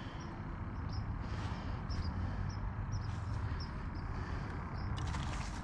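Low, uneven wind rumble on the microphone, with short high chirps repeating about once a second in the background. A brief crackling rustle about five seconds in.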